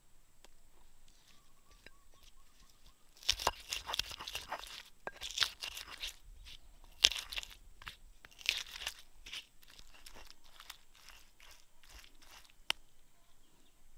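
Wooden pestle crushing and grinding chillies and shallots in a stone mortar: wet, gritty crunching strokes that start about three seconds in, thin out to scattered clicks, and end with one sharp knock near the end.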